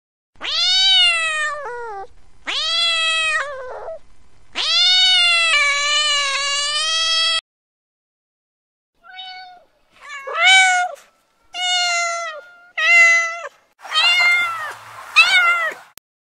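Cat meowing: three long, drawn-out meows, the third about three seconds long, then after a short pause a run of about six shorter meows, the last ones rougher.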